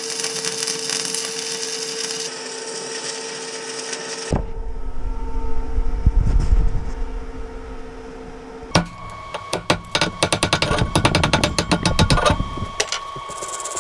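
Electric arc welding a nut onto a steel threaded rod: a steady crackle for about the first four seconds. Then, after a stretch of low rumbling, a run of quick, irregular hammer knocks on the freshly welded nut starts about nine seconds in.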